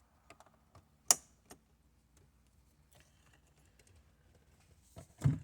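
Small plastic clicks and taps from a trim tool prying at the start/stop button surround on a BMW dashboard, with one sharp snap about a second in and a duller knock near the end.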